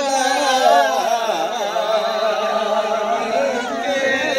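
Unaccompanied group singing of a Limbu (Yakthung) palam, the sung melody of the Yalang paddy dance, with several voices carrying one slow, wavering tune together.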